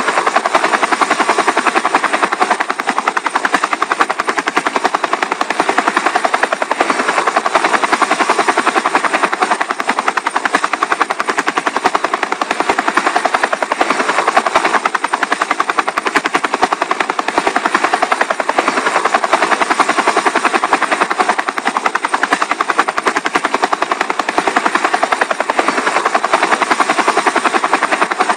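Small DC motors spinning the main and tail rotors of a homemade cardboard model helicopter, a steady, fast-pulsing buzz.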